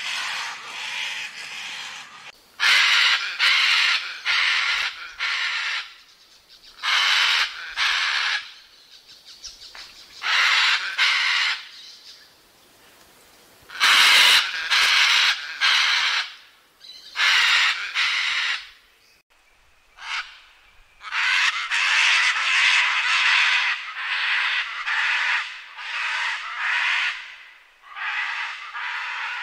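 Scarlet macaws screaming: loud, harsh, raspy squawks given several in quick succession, in runs broken by short pauses.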